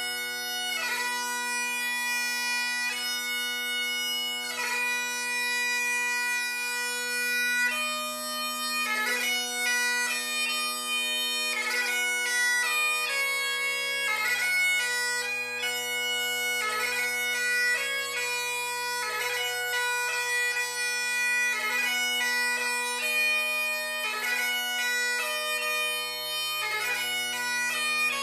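Great Highland bagpipe playing piobaireachd: steady drones sound under the chanter melody. Long, held, grace-noted notes come first, and after several seconds the notes change more quickly.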